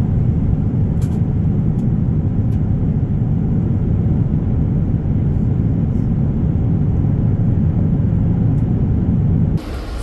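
Steady low rumble of a moving vehicle, with a few faint ticks.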